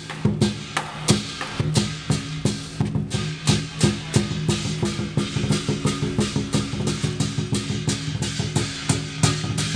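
Lion dance drumming: a large Chinese drum beaten in a fast, steady rhythm of many strikes a second.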